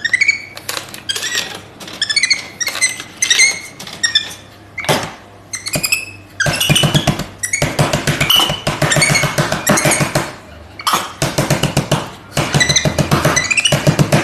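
A monkey's repeated high squeaks and chirps, mixed with slaps and knocks on the front and buttons of a drinks vending machine, coming in quick bursts that grow denser about halfway through.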